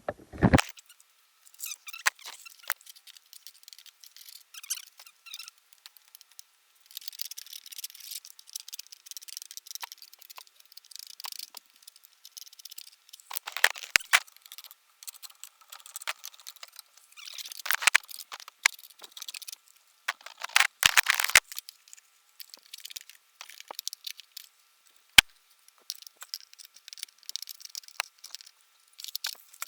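Irregular scratchy scraping in bouts of a second or two, with sharp clicks and taps between them, as caked debris is scraped off the underside of a push mower deck.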